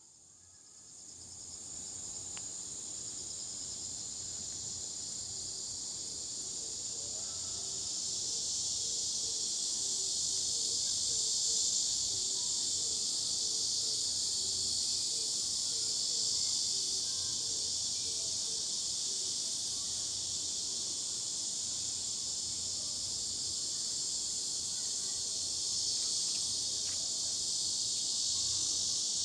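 Steady high-pitched buzzing of a chorus of insects, unbroken after fading in over the first couple of seconds.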